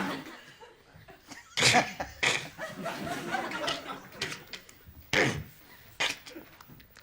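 Short mouth-made sound effects voiced into a microphone, a few brief sharp bursts with gaps between them, against scattered audience chuckling.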